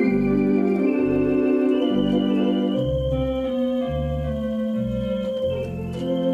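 Conn 650 three-manual electronic theatre organ playing a show-tune medley. Sustained chords sound over a bass line of short notes about two a second, with one long held note through the middle.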